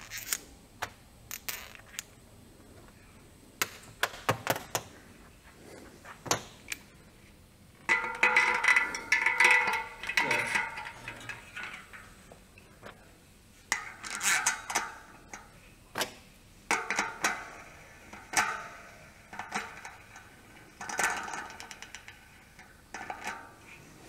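Metal bicycle hub parts and small tools clicking and clinking as the hub is put back together, with several longer stretches of metallic rattling and scraping as the axle and parts are worked into the wheel's hub.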